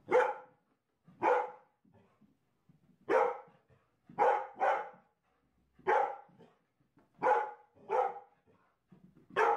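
A dog barking: nine short, loud barks at uneven intervals, two of them in quick succession about four seconds in.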